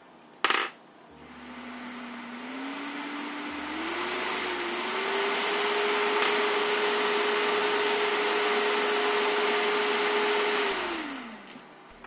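A large PC cooling fan driven by a homemade transistor speed controller speeds up in steps as the controller's variable resistor is turned up, its hum and rush of air rising in pitch. It then holds a steady speed and winds down near the end. There is a small click about half a second in.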